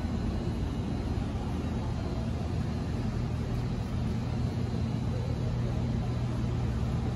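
Steady low rumble and hum of background noise, unchanging throughout, with no distinct hoofbeats or knocks standing out.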